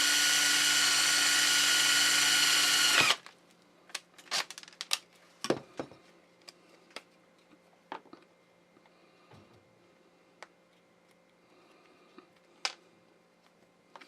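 Power drill running steadily as it drills out a copper rivet set in leather, then stopping abruptly about three seconds in. Scattered light clicks and knocks follow.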